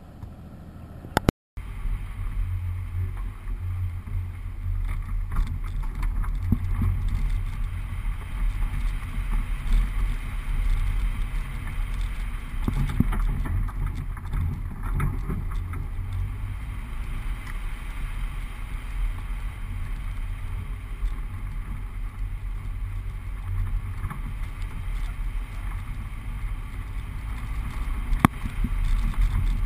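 Four-wheel drive driving along a sandy bush track: a steady low engine and drivetrain rumble with scattered knocks from bumps. It starts about a second and a half in, after a short break.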